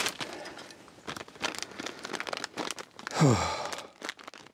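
Plastic bag of cable ties crinkling and rustling as it is handled. About three seconds in comes a short sigh that falls in pitch.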